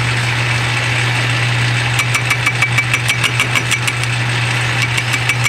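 Metal lathe running and facing a rough casting with a carbide-insert tool: a steady motor hum under the noise of the cut. From about two seconds in, a sharp tick repeats about six times a second.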